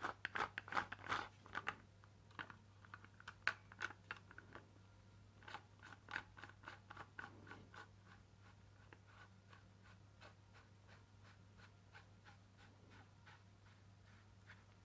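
Irregular plastic clicks and scrapes of the hammer drill's auxiliary side handle being fitted onto the drill's front collar and handled. They come thickest in the first couple of seconds and again about six to eight seconds in, then turn sparse and faint.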